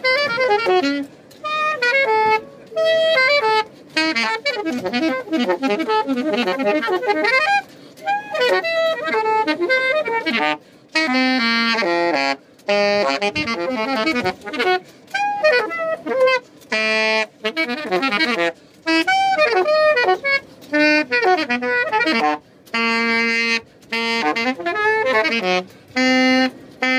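A saxophone played solo and loud: fast runs of notes and short held tones in phrases broken every few seconds by brief pauses for breath.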